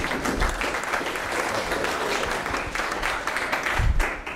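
Audience applauding: dense clapping that dies away near the end, with a low thump just before it stops.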